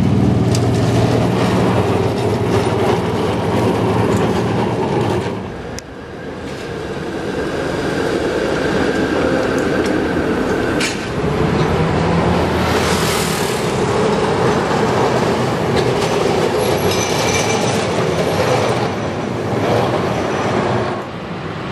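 Vintage streetcar running past on street track, its motor humming and wheels clattering. After a cut, steady street traffic on the rail-laid road, with a brief high squeal of steel wheels on rail later on.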